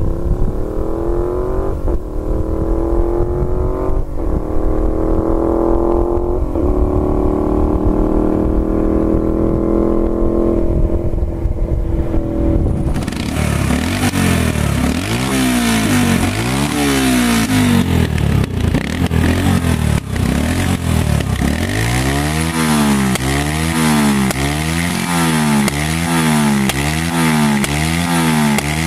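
A Yamaha Virago 125 with a straight exhaust accelerating up through the gears, its pitch climbing and dropping back at each shift, then holding and fading. About 13 seconds in, a Yamaha XT125 single-cylinder with a custom exhaust is revved while standing, in short blips that quicken to about one a second near the end.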